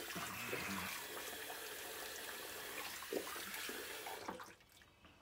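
Bathroom tap running steadily into a sink, then shut off about four seconds in, with a light knock shortly before.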